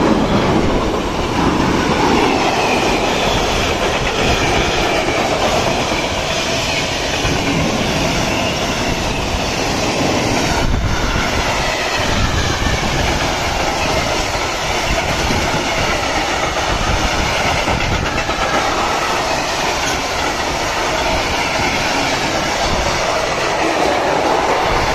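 Freight train of tank wagons passing close by: a steady, loud rumble and clatter of wheels and bogies running over the track.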